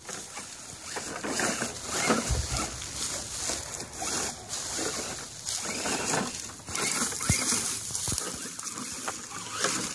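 Dry grass rustling and crackling as a radio-controlled crawler truck pushes through it and a person walks alongside, an irregular run of brushing and snapping with no steady motor tone standing out.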